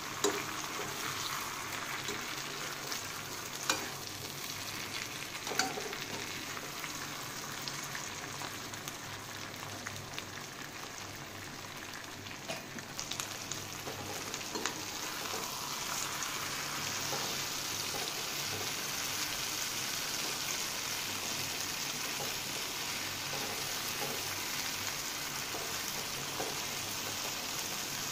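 Arbi (taro root) pieces in tamarind masala sizzling in oil in a kadai on medium-high heat. A slotted metal spatula stirs them, with a few sharp knocks against the pan in the first half.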